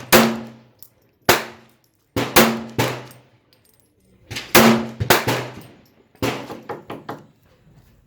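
Springfield XD9 9mm pistol firing a string of shots at irregular spacing, some in quick pairs. Each shot is a sharp crack with a short echo.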